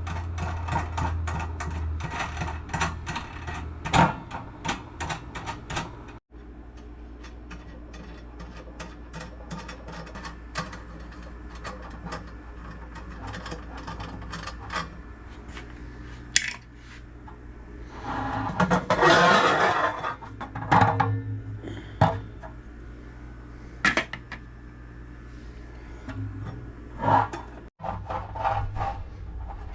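Handling and clatter of gumball machine parts being worked on: a quick run of rapid clicking for the first few seconds, then scattered knocks and clicks, with a louder scraping rush about two-thirds of the way through.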